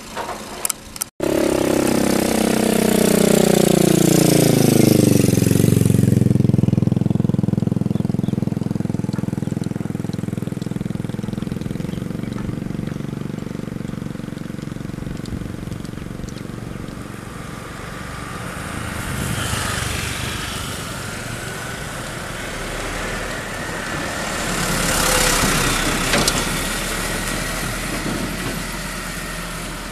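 Loaded Hino dump truck's diesel engine, its revs falling steadily over a few seconds just after a cut, then running on steadily as the truck moves off. The engine swells twice with a rush of noise in the second half. A few short knocks come in the first second, before the cut.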